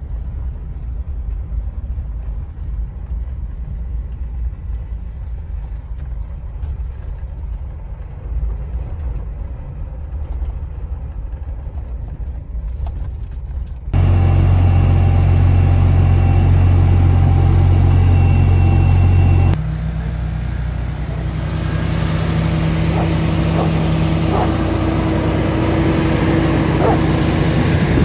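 Vehicle engine noise heard from inside cabs, in three cuts: a pickup truck's low engine and road rumble while driving, then about 14 seconds in a much louder, steady semi-truck engine hum, then from about 20 seconds a somewhat quieter, steady engine drone.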